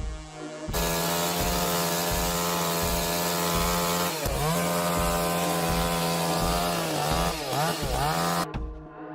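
Chainsaw running at high revs, its pitch dipping and recovering twice as the chain bites into the wood, then breaking off for a moment near the end.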